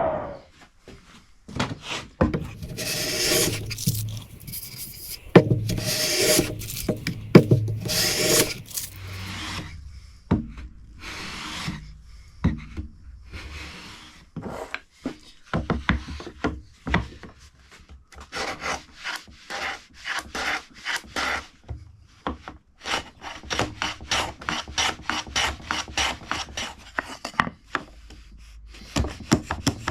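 A hand tool rubbing and scraping across pine in repeated back-and-forth strokes. The strokes are long and slow in the first half, then quicken to about three a second near the end.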